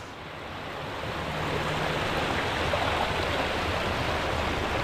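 River water flowing, a steady even noise that grows louder over the first second.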